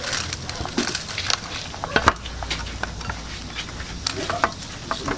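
Hands rubbing salt and pepper into a large whole fish on a stainless steel tray: irregular wet slaps, scrapes and clicks, with one sharper click about two seconds in.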